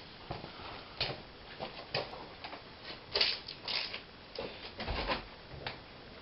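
Irregular knocks, taps and scrapes of hand work as the rear windscreen glass and its rubber seal are worked into the car body's window opening.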